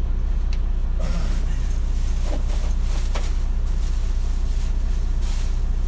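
Steady low drone of an idling 18-wheeler heard inside its sleeper cab, with a few faint light knocks of things being handled.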